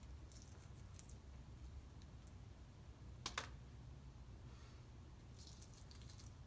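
Shell of a hardboiled egg being peeled by hand: faint crackling clicks as bits of shell break away, with a pair of sharper cracks a little over three seconds in, over a low steady hum.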